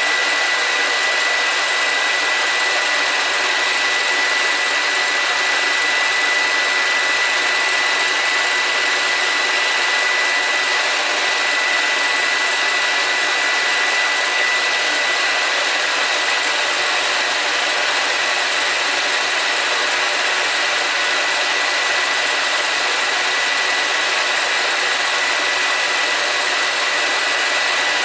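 Home-movie film projector running: a steady motor-and-fan whir with a thin, constant high whine.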